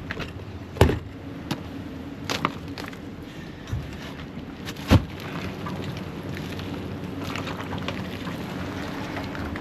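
An engine running steadily at idle, with three sharp knocks or thuds over it, at about one, two and a half and five seconds in.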